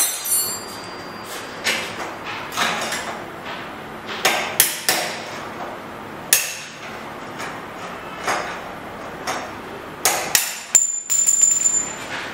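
Hammer driving a punch against the steel steering-head bearing races of a Suzuki GS150 to knock the old races out: sharp metallic strikes, irregular and spaced out. A high metallic ring hangs on for about a second near the end.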